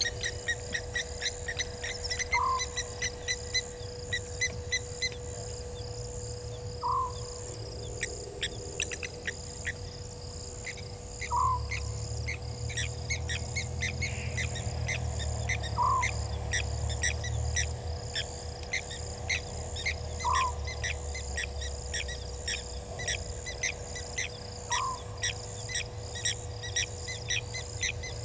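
An owl giving a short call about every four and a half seconds, over a steady chorus of high insect-like chirps and clicks in the night bush.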